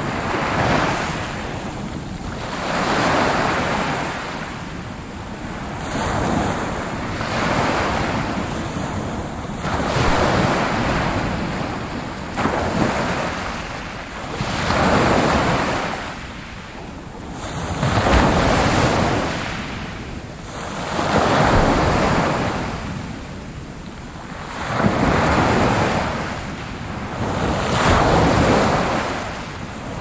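Small sea waves breaking and washing up a sandy beach, the surf swelling and fading every two to three seconds.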